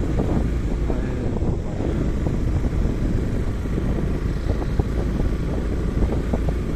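Motorcycle riding over a rough dirt and gravel track: engine running steadily under the rumble and knocks of the ride, with wind buffeting the microphone.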